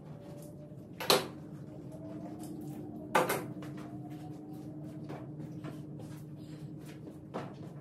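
Sharp knocks and clatter of hard objects being handled, two loud ones about two seconds apart and a lighter one near the end. A steady hum starts with the first knock.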